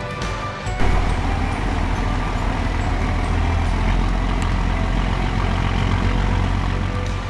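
Steady low rumble with a hiss over it, the kind of sound a running engine or traffic makes, after background music breaks off under a second in.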